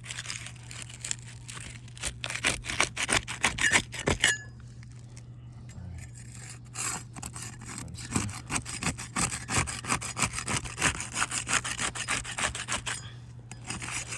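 Quick, repeated scraping strokes of a tool worked against asphalt roof shingles to loosen them. The strokes come in two runs with a short pause between, over a steady low hum.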